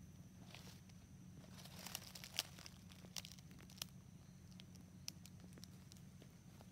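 Faint crackling and a few sharp clicks of dry leaf litter being shifted, clustered in the first five seconds, over a steady low hum and a thin, steady high tone.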